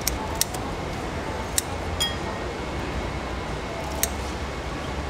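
Kitchen scissors snipping through a raw mantis shrimp's shell in a series of sharp clicks. There are several in the first two seconds and one more about four seconds in, over steady background noise.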